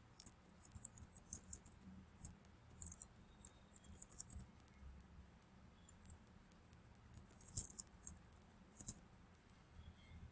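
Faint typing on a computer keyboard: runs of light, quick keystrokes, with two louder clicks in the second half.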